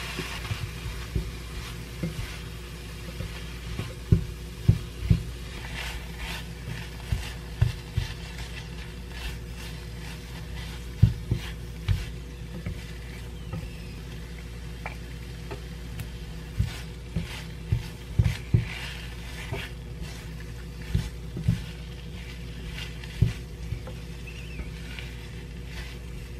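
Chicken and mixed vegetables stir-fried in a pan: a spatula knocks and scrapes against the pan many times over a light sizzle. A steady low hum runs underneath.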